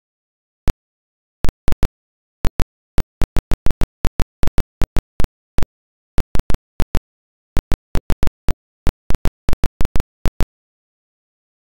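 A string of sharp clicks at irregular intervals, several a second in places, with dead silence between them.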